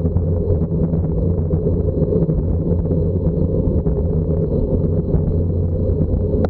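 Steady low engine rumble at an even pitch, running without a break.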